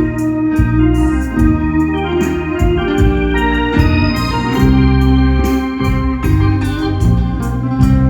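Live instrumental music from a small Thai parade-truck band, led by an electronic keyboard playing sustained chords and a melody, with faint regular percussion ticks.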